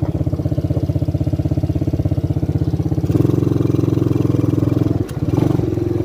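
250cc Lida ATV engine running while riding, a steady pulsing engine note. About three seconds in it gets louder and fuller as the throttle opens, then briefly drops just after five seconds before picking up again.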